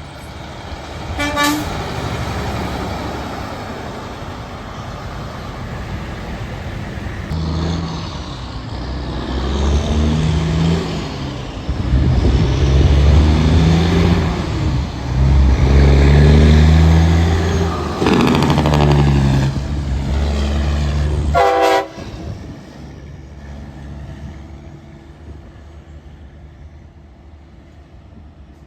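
Diesel semi truck engine pulling hard through several gear changes, its pitch climbing and dropping in steps, with a short horn toot about a second in and another just before the engine sound cuts off sharply. Fainter steady traffic noise follows.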